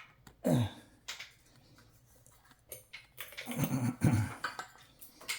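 Clicks and knocks from a ceiling fan being handled up onto its mount, with a few short grunts of effort whose pitch falls away, the loudest a little before the end.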